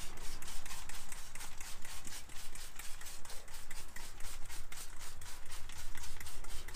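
Hand trigger spray bottle pumped rapidly, squirting degreaser in an even run of short hissing sprays, about five a second.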